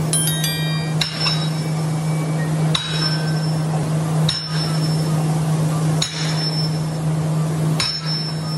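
Vermeer industrial wood chipper running with a steady hum while chipping heavy timber. Five heavy knocks, each with a metallic ring, come about every one and a half to two seconds.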